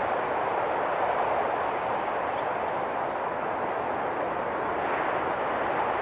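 Sea surf breaking on the shore, heard as a steady, even wash of noise.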